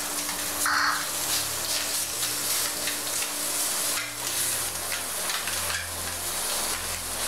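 Pieces of green pepper sizzling in hot oil in a frying pan, with a spatula scraping across the pan as they are stirred and turned.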